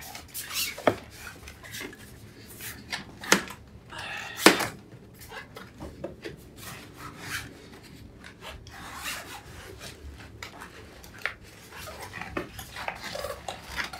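Challenge Strada tubeless road tyre being pushed by hand onto a carbon rim, with rubber rubbing and scraping against the rim as the bead goes on tight. A few sharp clicks come through, the loudest about four and a half seconds in.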